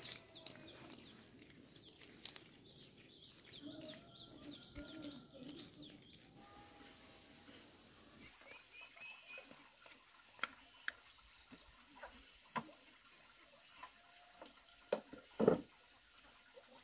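Outdoor birdsong and chirping with a high steady insect buzz. Then a few sharp knocks and a heavier thump about fifteen seconds in, from plastic wash basins being handled at a water tap.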